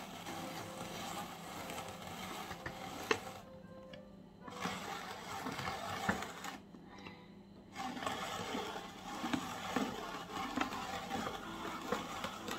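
Hand-cranked tri-blade spiralizer cutting a cucumber into spiral noodles: a steady crunchy, wet scraping as the blade shaves the cucumber, stopping briefly twice when the cranking pauses.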